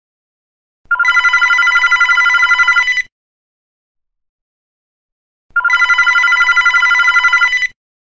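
Telephone bell ringing twice. Each ring is a rapid metallic trill lasting about two seconds, with a pause of about two and a half seconds between rings.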